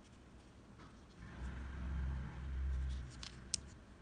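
A low rumble for about two seconds, then a few light clicks, one sharp, as a small metal fishing hook is set down on a table.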